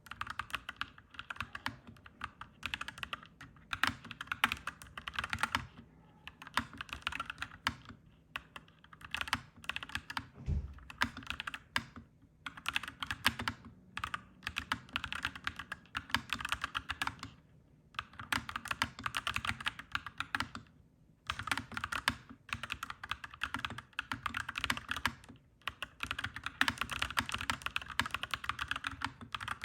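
Clacky mechanical keyboard typing: fast runs of keystrokes broken by short pauses.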